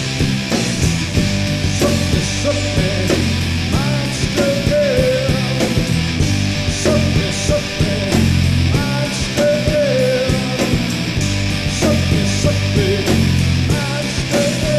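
Rock music, an instrumental passage: a lead electric guitar line with bent, wavering notes over bass guitar and a busy, steady drum beat.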